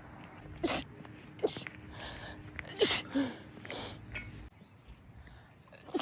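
A woman's rapid sneezing fit, set off by sunlight: four sharp sneezes about a second apart, the third the loudest, then a short lull before another sneeze right at the end.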